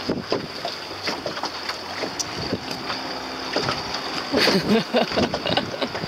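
Wind buffeting the microphone and choppy water slapping against the hull of a small boat under way, with a steady high whine throughout and a louder spell of splashing a little past the middle.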